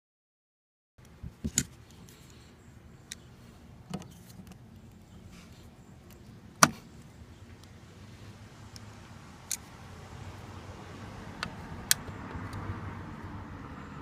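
Sharp metallic clicks and clinks, about eight at irregular intervals with the loudest near the middle, as pliers pull crimped spade connectors off the terminals of an RV rooftop air conditioner's run capacitor. A faint steady hiss lies under them, starting about a second in.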